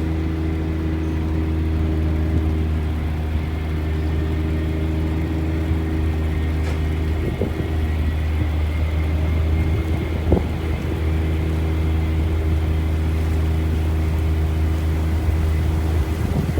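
Steady low drone of a gillnet fishing boat's engine running underway, with a stack of even humming tones, heard on board; two brief bumps come about seven and ten seconds in.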